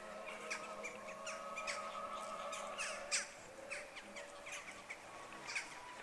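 Birds at a pond calling: a steady stream of short, sharp calls, several a second, over a faint steady hum.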